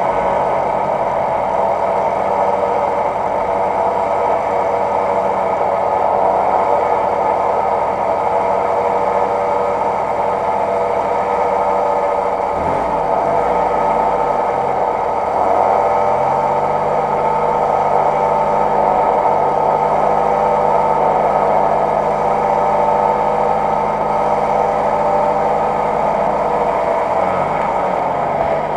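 UAZ-469 off-roader's engine running at steady high revs under load as it strains to crawl up a muddy gully bank. Its note shifts lower down about halfway through, then holds steady again.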